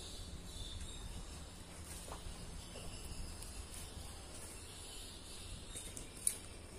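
Faint outdoor ambience: a steady high insect chirring over a low rumble, with one short click near the end.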